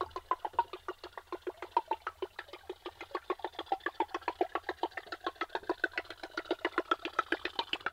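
Topwater musky lure being retrieved across the surface, clacking in a steady rhythm of about nine clicks a second.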